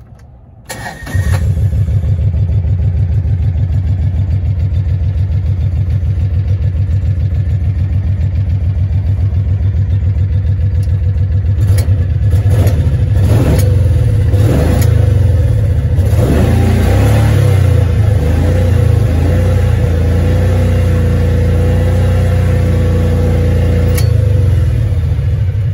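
Kawasaki Mule utility vehicle's engine catching about a second in, then running steadily with a rapid, even low pulse. The sound changes and grows busier around the middle.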